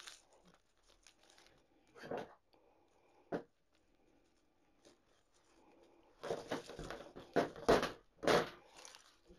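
Artificial eucalyptus berry stems rustling and crinkling as they are handled. A sharp click comes about three seconds in, and a louder run of rustling with a few snaps follows in the last three seconds.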